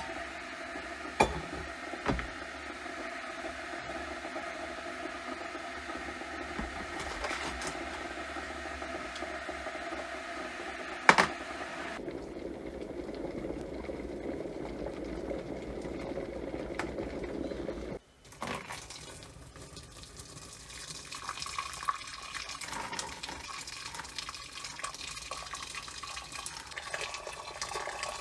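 Water running and splashing, with sharp knocks about a second in, about two seconds in and about eleven seconds in. The sound changes character twice, with a short break near the eighteen-second mark.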